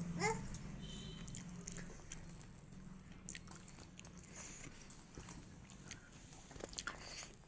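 A toddler eating dry snack pieces straight off a plate with its mouth: soft crunching and chewing in scattered small clicks. A brief squeak comes just after the start.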